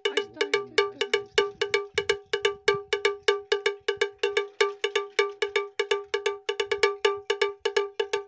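Rapid, evenly paced strikes of a small metal bell, about six or seven a second, each a short ringing clang at the same pitch.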